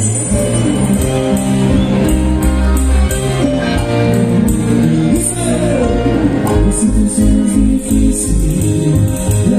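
Live tropical cumbia band music: sustained keyboard notes over bass and percussion keeping a steady beat, with a shaker-like rhythm on top.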